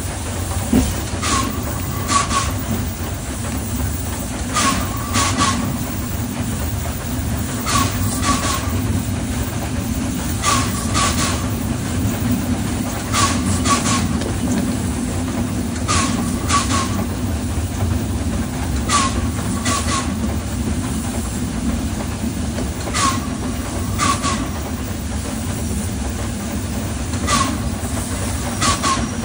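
Steam locomotive running along the track: a steady low rumble, with pairs of sharp wheel clicks over rail joints every two to three seconds.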